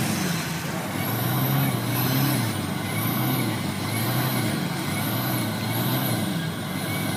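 Land Rover engine running, its pitch rising and falling unevenly as the load changes. A faint high whistle rises and falls about once a second.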